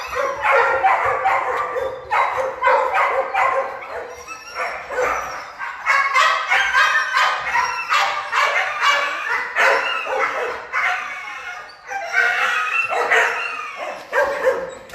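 Dogs in shelter kennel runs barking continuously, their barks overlapping with hardly a break.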